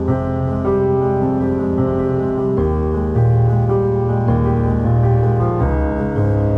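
Background music led by piano, with sustained notes and chords changing every second or so.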